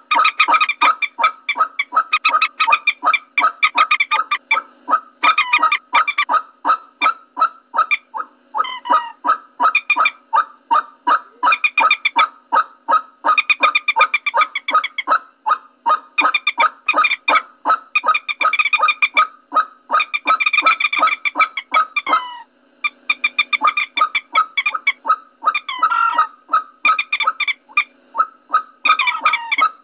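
Common moorhen calls played as a bird-lure recording: a fast, steady run of short pitched notes, about four or five a second, with a few wavering pitch slides and one brief break about two-thirds of the way through.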